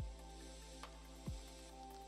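Background music: sustained tones over a deep, downward-sliding bass beat that hits about once a second, with a sharper tick between the beats.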